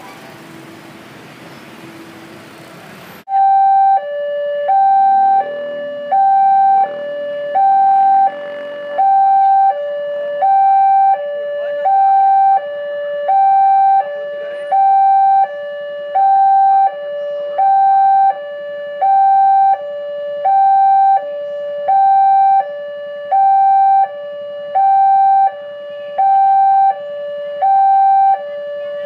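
Railway level-crossing warning alarm: an electronic two-tone signal alternating a higher and a lower note over and over, about once every second and a half, sounding while the crossing is closed for an approaching train. For the first three seconds the alarm is fainter under a loud hiss of rain, which cuts off abruptly.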